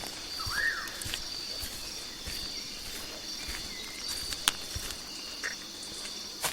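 Jungle ambience: insects keep up a high buzz in repeating pulses, and a bird gives a short arched call about half a second in, with another brief call later. A few sharp clicks or snaps break through, the loudest about two-thirds of the way in.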